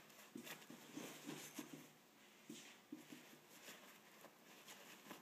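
Faint rustling and soft scuffing of a nylon sleeping-bag stuff sack, handled as its drawstring top is loosened and opened.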